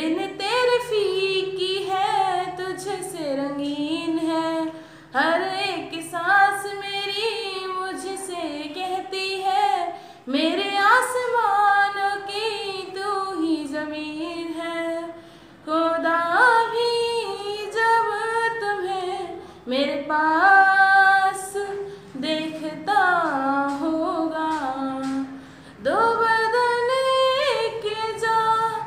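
A woman singing a Hindi film song unaccompanied. She sings in phrases a few seconds long with gliding, ornamented notes and short pauses between them.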